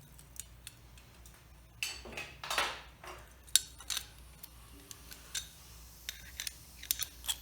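Light metallic clicks and rattles of an air-hose fitting or air tool being handled, with two brief hisses of air about two and two and a half seconds in.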